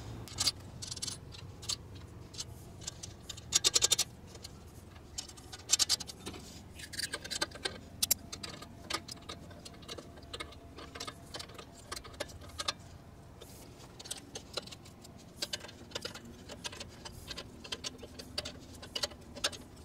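Small metal clicks and clinks of nuts and washers being threaded and tightened onto truck battery terminals, irregular and light, with a few louder clinks.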